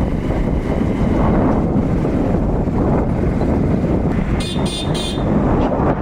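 Wind buffeting the phone's microphone with a steady rumble. About four and a half seconds in, a horn gives three quick high-pitched toots.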